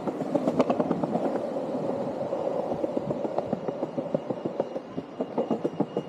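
Landyachtz Dinghy cruiser skateboard's wheels rolling over stone paving slabs: a steady rumble with rapid, irregular clacks as the wheels cross the joints between slabs. The rumble eases briefly past the middle, then the clacking picks up again.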